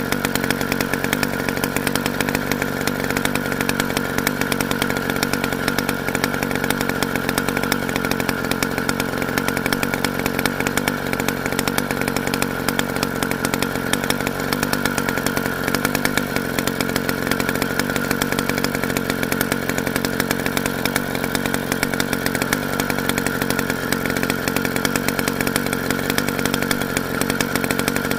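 Small two-stroke engine of a motorized bicycle running steadily at a constant speed, with a buzzing, chainsaw-like drone.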